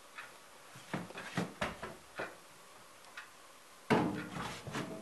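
Several light knocks and taps, then a louder bump about four seconds in, as the camera is handled and the cat comes right up to it.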